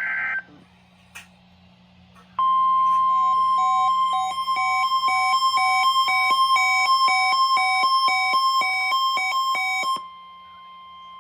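NOAA Weather Radio's 1050 Hz warning alarm tone, a single steady tone held for about seven and a half seconds during the weekly test. A weather-radio receiver's alert beeps over it at about three beeps a second, alternating between two pitches, and both stop together near the end.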